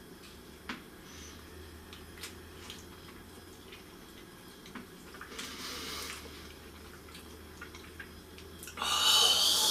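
Someone eating a hot microwave quiche: faint clicks of a utensil and wet mouth sounds of chewing. Near the end comes a loud breathy blowing of air, about a second long, from a mouthful that is too hot.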